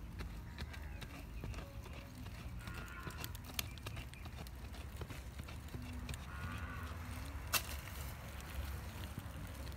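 Digging in dry, stony soil by hand: a hand tool jabs and scrapes into the hard earth, giving irregular knocks, gravelly scrapes and the rustle of loosened dirt being scooped out, with a couple of sharper clicks.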